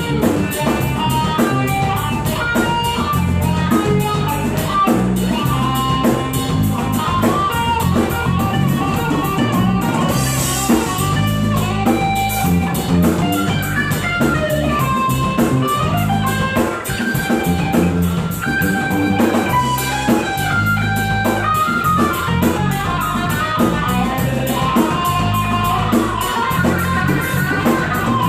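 Live rock band playing an instrumental passage: electric guitar lead moving over bass and a steady drum-kit beat, with cymbal crashes about ten seconds in and near the end.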